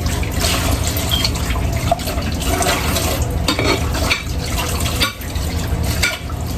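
Kitchen tap running into the sink while dishes are washed, with occasional clinks of dishes and utensils.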